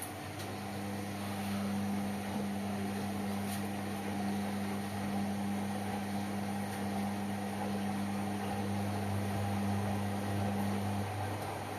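Indesit washing machines running mid-wash: a steady motor hum comes in near the start and stops about a second before the end, over a constant lower hum.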